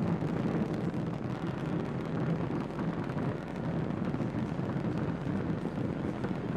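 Falcon 9 rocket's first-stage engines in powered ascent: a steady, dense rumble.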